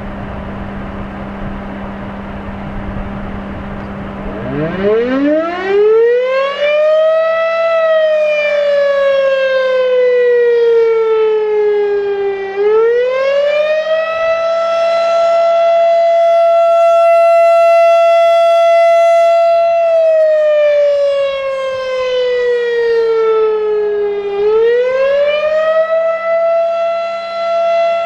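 Federal Signal RSH-10 Thunderbeam outdoor warning siren starting up with wind noise on the microphone. About four seconds in it winds up into a single loud tone. The tone then slowly sinks in pitch, swings back up and holds steady for several seconds, sinks again and rises once more to hold.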